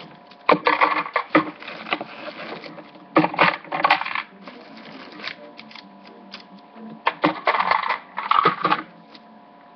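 Small hard food charms clicking and clattering as they are scooped up off a paper sheet by hand and dropped into a container, in three short bursts with pauses between.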